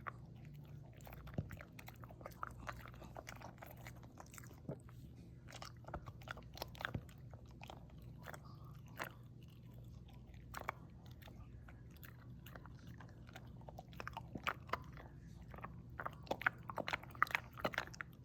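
A dog chewing and crunching a dental chew, with irregular bites and crunches that come faster and louder near the end.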